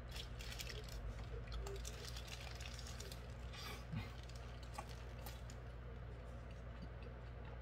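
Eating a hamburger: chewing and the crinkle of its paper wrapper, heard as scattered crackly clicks and rustles, mostly in the first five seconds, over a steady low hum. A brief low mouth sound about four seconds in, as he bites.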